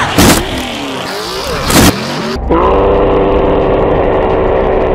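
Mud-bog pickup truck's engine revving hard, with two loud bangs about a second and a half apart. In the second half the engine holds a steady high drone.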